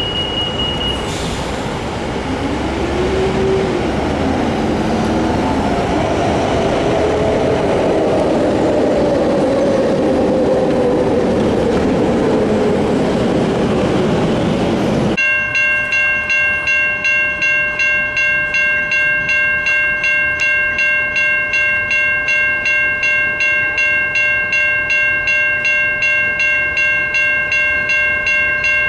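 Road traffic passing over a level crossing makes a loud rushing noise. About halfway through it gives way to the crossing's warning bell, ringing steadily at about two strikes a second: the crossing is activated for an approaching Amtrak Cascades train.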